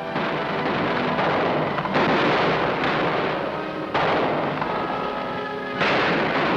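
Four loud gunshots about two seconds apart, each with a long fading echo, over background music.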